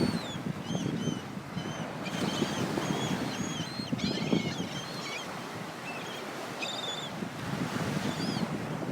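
Surf washing in and wind buffeting the microphone, with many short, high chirping bird calls scattered throughout.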